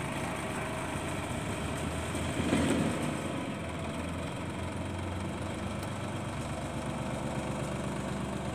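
Sonalika DI 60 RX tractor's diesel engine running steadily while its hydraulics hold the tipping trailer raised to dump a load of soil. It grows briefly louder about two and a half seconds in.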